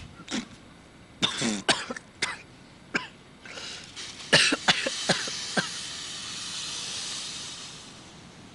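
A man coughing in a string of short, sharp coughs and hacks, choking on smoke. A steady breathy hiss runs through the second half.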